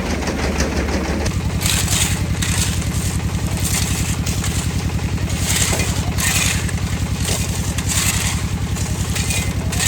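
Concrete mixer running with a steady engine chugging, while the mix churns in the drum with gritty rushing scrapes every second or so.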